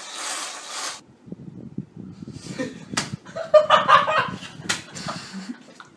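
Sharp open-hand slaps of a cream-covered hand against a person's face, two smacks about three seconds in and near the five-second mark, with voices reacting between them.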